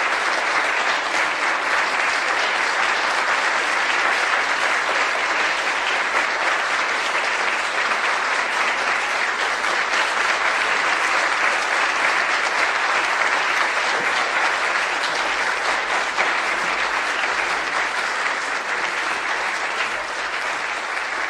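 Applause from a crowd of about a hundred people, dense and steady clapping that eases slightly near the end.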